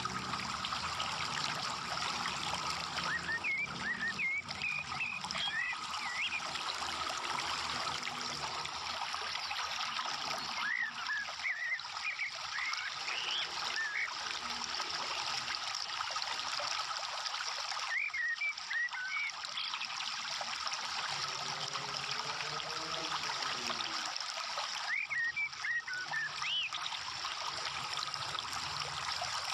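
Steady trickling, running water, with clusters of short high chirps every several seconds.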